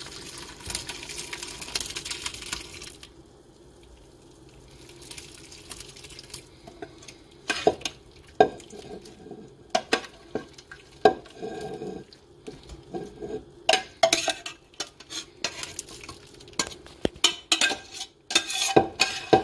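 Whey and curds poured from a stainless steel pot into a paneer mould in a colander, a steady splash for about three seconds. Then a metal spoon scraping and tapping the last curds out of the steel pot, a run of sharp clinks and knocks through the rest.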